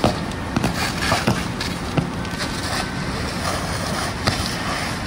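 A two-story house burning fully involved: a steady rushing noise broken by irregular sharp pops and crackles every second or so.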